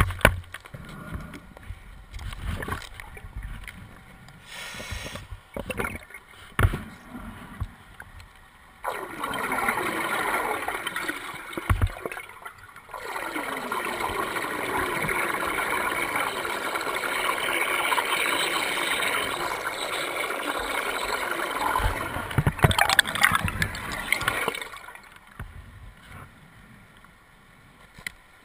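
Scuba diver's regulator exhaust bubbles, heard underwater: a few seconds of bubbling about a third of the way in, then a longer stretch of bubbling through the middle. Scattered quieter clicks and knocks come before and after.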